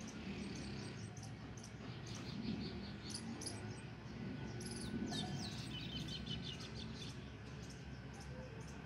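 Small birds chirping in the background, with quick runs of twittering notes about halfway through, over a steady low ambient noise.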